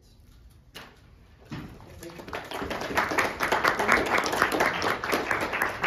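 A small audience clapping, starting about a second and a half in and swelling to a steady applause.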